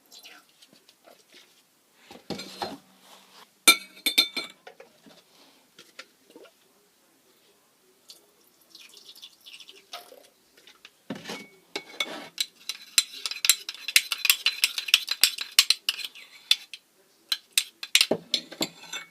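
A utensil stirring slime ingredients in a container, clinking and scraping against its sides, with a sharp knock a few seconds in. From about twelve seconds to sixteen seconds the stirring turns fast and continuous.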